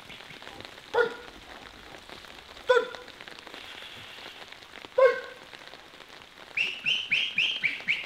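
Steady rain falling, with a dog barking three single times a couple of seconds apart, and a quick run of high-pitched calls near the end.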